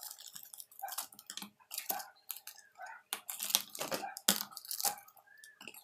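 Hands rummaging in a small cardboard box and pulling out plastic-bagged toy parts and paper: an irregular run of quick clicks, taps and crinkles.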